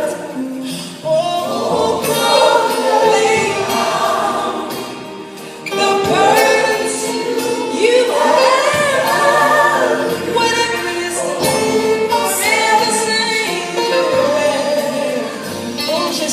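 Gospel music with a choir singing; it eases off about four seconds in, then swells again with long, wavering sung notes.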